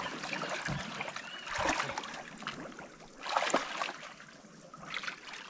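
Shallow river water sloshing and splashing around a wading man's legs and the pontoons of a catamaran as he pushes it off from the bank, in uneven swells.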